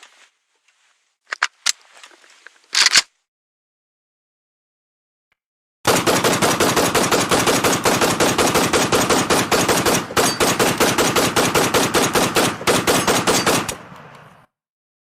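AK-47 assault rifle firing a long burst on full automatic, rapid shots for about eight seconds before cutting off. It is preceded about three seconds earlier by a few short clicks and a sharper clack.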